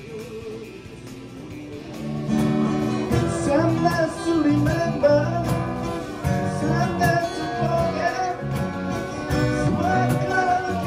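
Music with guitar and a singing voice, getting louder about two seconds in.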